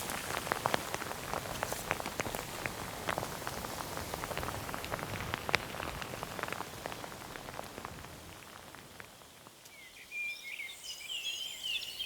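Hailstones pattering down as a dense stream of sharp ticks, which eases off and dies away about eight seconds in. Near the end, a small bird starts singing.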